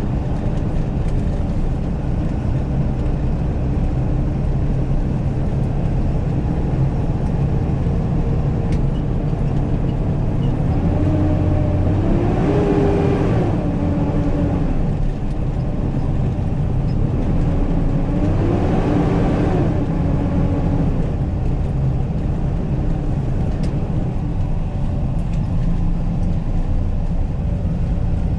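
Steady drone of a Peterbilt rollback tow truck's engine and road noise heard from inside the cab at highway speed. Twice, near the middle, a long horn blast of about three seconds each sounds: the pitch rises as it starts, holds, and sags as it ends, in the way of an air horn warning traffic ahead.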